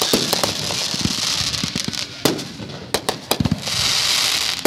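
Aerial fireworks bursting overhead: a run of sharp bangs, the loudest a little past the middle, with a high hiss of burning stars between them.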